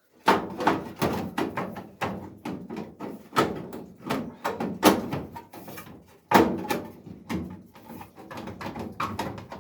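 Irregular knocks and thuds on car body sheet metal, a few a second, each with a short ring, as a panel is worked into place.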